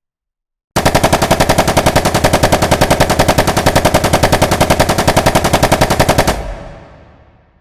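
Rifle firing on full automatic, a single long sustained burst of rapid, evenly spaced shots that starts about a second in and stops abruptly near the end, then echoes away.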